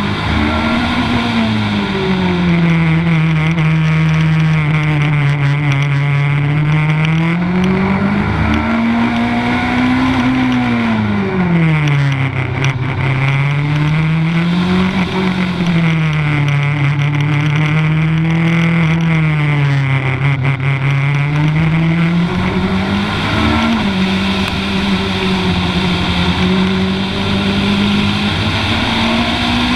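Legend race car's Yamaha four-cylinder motorcycle engine pulling hard through an autocross course, its pitch rising and falling over and over every few seconds as the driver accelerates between corners and lifts or brakes into them.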